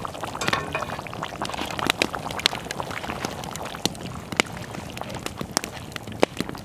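Beaver stew in a cast-iron pot over a campfire being stirred with a wooden spoon: liquid sloshing and bubbling, with scattered sharp clicks and pops throughout.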